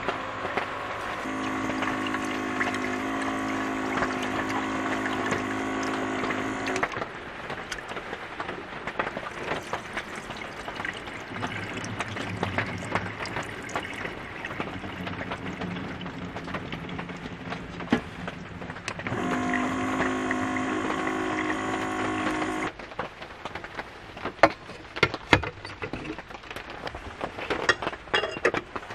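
Small electric water-jug dispenser pump running with water streaming into a pot, once for about six seconds and again for about three and a half seconds later. Between the two runs, rice is swished in water and rinse water is poured into a stainless steel sink. Sharp clicks and knocks come near the end.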